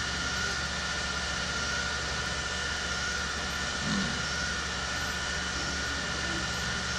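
Steady background room noise: an even hiss with a low hum and a faint steady high whine.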